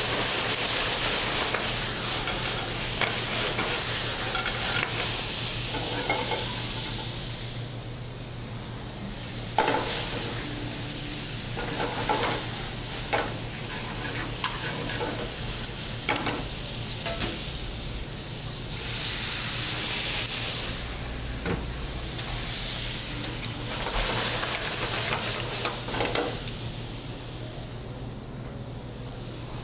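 Food sizzling and frying in sauté pans on a gas range while a pan is flambéed, the sizzle swelling and fading in waves. Sharp clinks of metal utensils against the pans come now and then.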